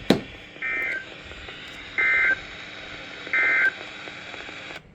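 Emergency Alert System end-of-message (EOM) SAME data bursts: three short, identical digital warbling tone bursts about 1.4 seconds apart. They close the weather warning broadcast and play over steady broadcast hiss, which cuts off abruptly just before the end.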